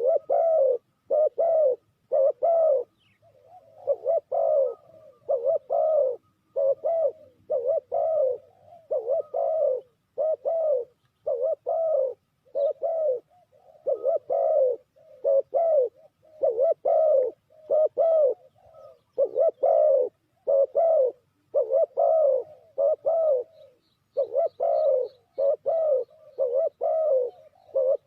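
Spotted dove cooing over and over: a steady run of short, low coos, about two a second, in phrases broken by brief pauses.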